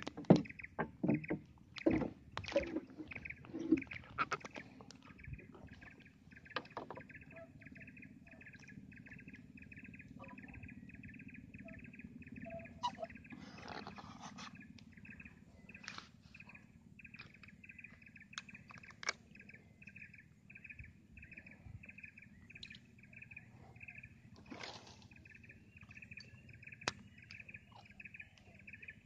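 Knocks and clatter against a small wooden boat during the first few seconds, then a steady, evenly pulsing chirp, about four pulses a second, from a calling animal, with scattered small clicks.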